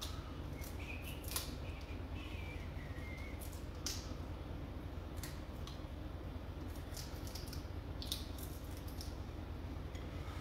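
Raw prawns being peeled by hand, with small clicks and crackles of shell breaking off and dropping into a stainless steel saucepan, over a steady low hum.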